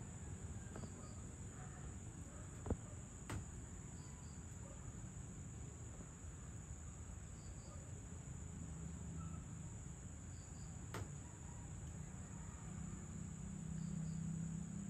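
Faint evening insect chorus: a steady high trill, with a paired high chirp repeating about every three seconds. A sharp tap comes about two and a half seconds in. A low hum swells near the end.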